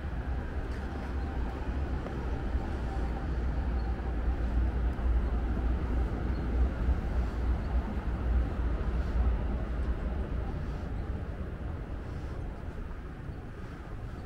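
Low rumble of a passing vehicle, building over several seconds and then fading, over outdoor city ambience.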